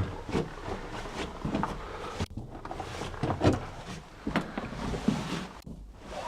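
A series of irregular dull thuds and knocks over a low rumble, about a dozen in all, with two brief moments where the sound drops out completely.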